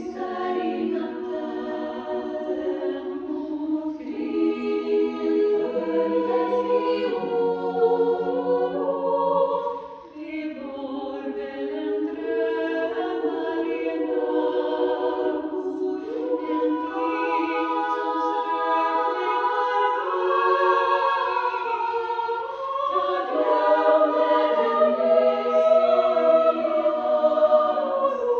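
Women's choir singing a cappella in several parts, holding sustained chords that move step by step, with a short break for breath about ten seconds in.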